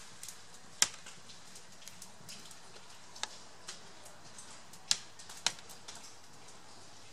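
Water dripping: scattered single drops tapping sharply at irregular intervals, the loudest about a second in and others around the middle, over a faint steady hiss.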